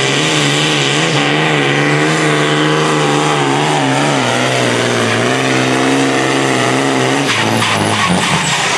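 John Deere 4240 pulling tractor's turbocharged six-cylinder diesel running flat out under load as it drags the pulling sled, a loud steady engine note that wavers slightly. Near the end the engine note drops in pitch and a few sharp clatters are heard.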